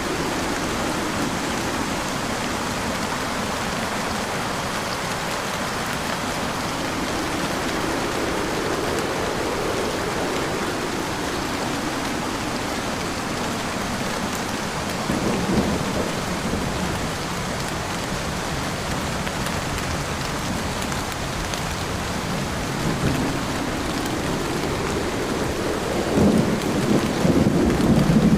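Heavy rain falling steadily on a car, with louder low rumbles about halfway through and again near the end.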